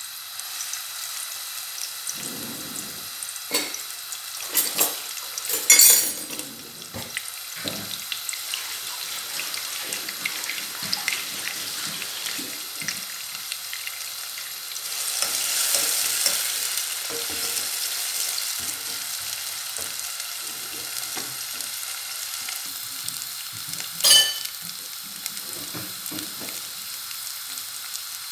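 Chopped onion sizzling in hot oil in a cooking pot, a steady frying hiss that swells about halfway through. A few sharp knocks sound, the loudest about six seconds in and another near the end.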